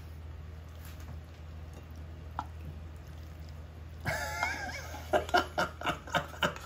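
A man laughing in a quick run of "ha-ha-ha" bursts, about four a second, starting about four seconds in over a low steady hum.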